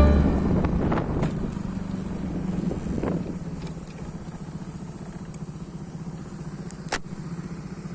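A vehicle engine running steadily, a low even hum with road or wind noise over it, and one sharp click about seven seconds in.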